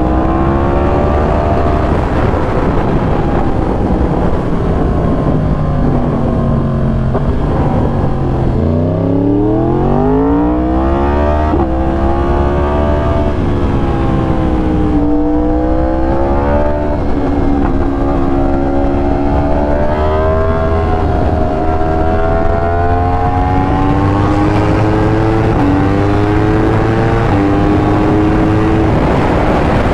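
A 2020 Yamaha R1's crossplane inline-four running through an SC Project exhaust while riding. It holds a fairly even note for the first several seconds, then about nine seconds in it pulls hard with the pitch climbing, and the rest is a string of rising runs, each cut by a drop in pitch at a gear change.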